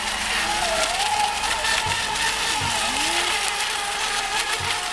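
Several electric Mini Eco Expert RC racing boats running on the water. Their motors whine in wavering, gliding pitches that rise and fall as the boats pass and turn.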